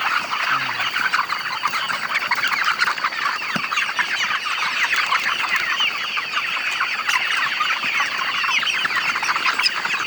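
A large flock of chickens peeping and clucking all at once in a dense, unbroken chorus, the clamour of birds crowding for their feed.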